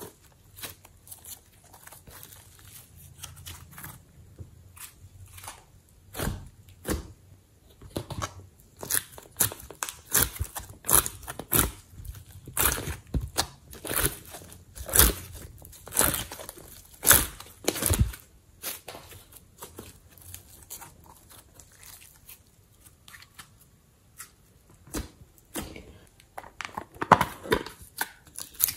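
Slime being squeezed, stretched and pulled out of a silicone ice-cube tray by hand, giving irregular sticky clicks and crackles. The clicks are sparse at first, come thick and loud for about ten seconds from around six seconds in, then thin out, with another loud cluster near the end as fingers press into slime in a compartment box.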